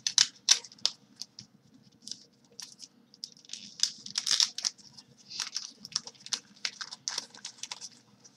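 Wrapping paper on a package being torn open and crumpled by hand: irregular rustles, rips and crackles, busiest in the second half.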